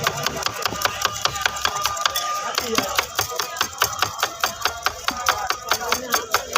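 A street vendor's utensil tapping fast and evenly, about six sharp strikes a second, while chana chaat is made.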